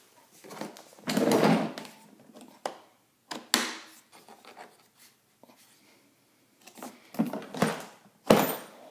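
Hard plastic carrying case of an air tool kit being handled as its latches are worked, with rustling, clicks and a few sharp knocks; the case is stuck and will not open.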